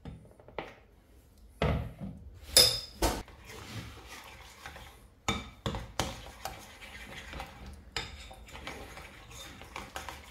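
Metal fork stirring melted chocolate and egg yolks in a ceramic bowl. It scrapes and clinks against the bowl at irregular intervals, loudest about two and a half seconds in.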